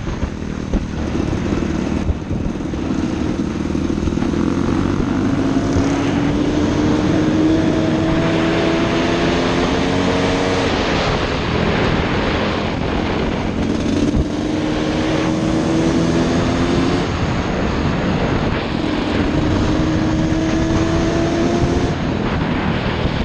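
Dirt bike engine pulling steadily under way, its pitch climbing slowly in each gear and dropping back at each upshift, several times over, with wind rushing across the helmet-mounted microphone.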